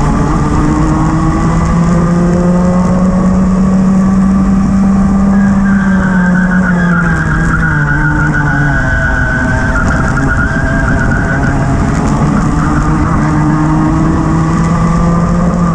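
Rotax two-stroke kart engine at racing speed, heard from onboard the kart. Its pitch falls through a corner around the middle and climbs again on the following straight.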